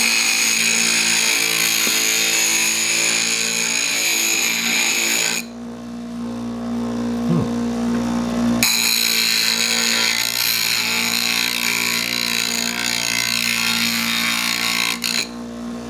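Small Vevor bench grinder's motor running with a steady hum while an old steel chisel is ground on its fine grinding stone, giving a high scraping grind. The grinding stops about five seconds in and starts again about three seconds later, stopping just before the end while the motor keeps running.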